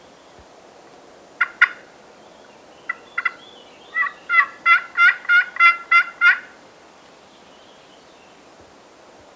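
Turkey calling: two sharp notes, a few more a second later, then a quick evenly spaced run of about eight calls lasting a couple of seconds.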